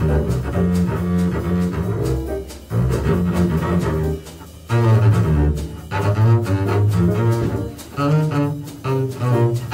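Bowed (arco) double bass playing an improvised jazz solo line, a steady run of notes with a short pause about halfway through.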